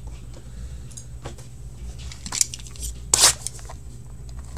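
Hands opening a cardboard trading-card box: a few short scraping, rustling handling sounds, the loudest about three seconds in, over a steady low electrical hum.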